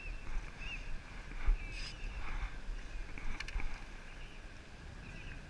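Water lapping against a plastic sit-on-top fishing kayak's hull, with a single knock on the hull about a second and a half in and a quick cluster of clicks around three and a half seconds.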